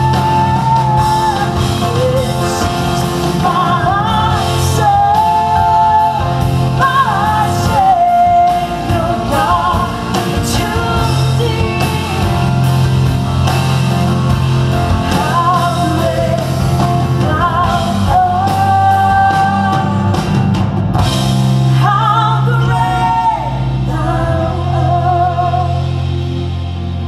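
A woman singing a Christian pop-rock song live with a full band: electric guitars, bass, drum kit and keyboard. The band eases off a little near the end.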